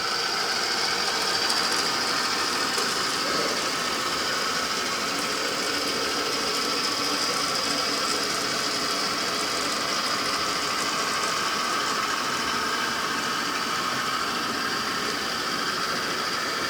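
Model railroad locomotive running steadily along the track, with a constant whine and rattle from its motor, gears and wheels.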